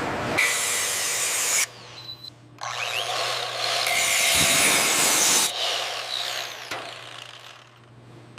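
Power tool running in two stretches, about a second and then about three seconds, with a sudden drop between them; the second stretch fades out near the end.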